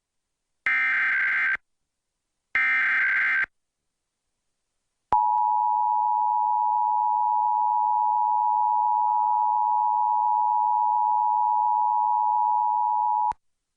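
Emergency Alert System Required Monthly Test tones. First, two one-second bursts of SAME digital header data, a buzzy warbling screech, about a second apart. After a short pause comes the EAS two-tone attention signal, 853 and 960 Hz sounded together, held steady for about eight seconds before cutting off.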